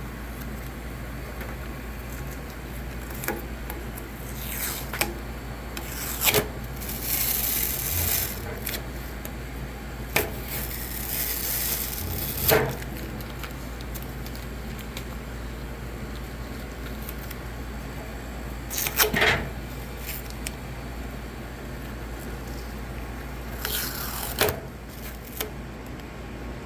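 Heavy duct-like shipping tape being peeled off the back of a DTG printer: several short, rasping pulls a few seconds apart, over a steady low hum.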